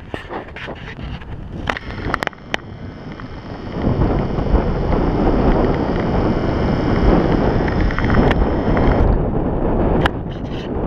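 Wind buffeting the microphone in outdoor open air, growing heavier about four seconds in and easing near the end, with scattered sharp clicks and faint steady high tones above it.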